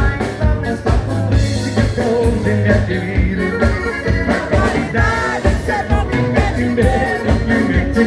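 Live gaucho dance band playing a vanerão at a fast, even beat, with singing over the music.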